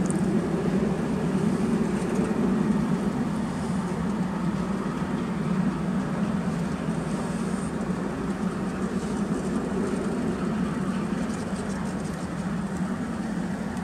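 Covered grain hopper cars of a freight train rolling past, a steady noise of steel wheels on the rails that eases slightly toward the end.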